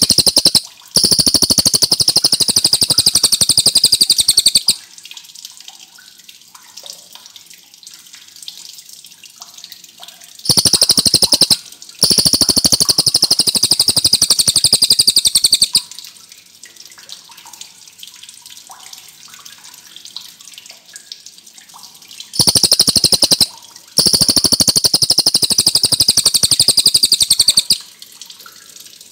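Cililin songbird singing in long, very fast, high trilling rolls. It sings three bouts about ten seconds apart, each a short burst, a brief break, then a roll of about four seconds, with quiet gaps between.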